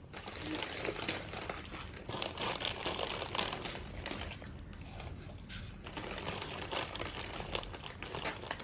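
Snack bag crinkling as it is handled: a dense run of irregular crackles, easing off briefly around four and six seconds in.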